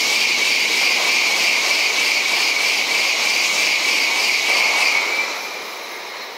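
An N700-series Shinkansen train passing through the station at high speed. It makes a loud rushing noise of wheels and air, with a steady high whine that ends at about five seconds, and then fades off as the train draws away.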